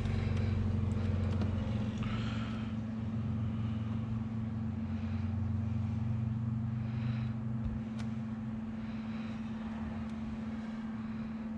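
A steady low mechanical hum with a deeper hum underneath that drops away near the end, and a single sharp click about eight seconds in.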